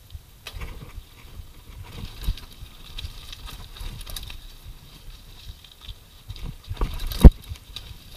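Mountain bike clattering and rattling over a rough dirt and rock trail, the tyres and frame taking irregular knocks. There are a few harder thumps, and the loudest is a sharp knock near the end.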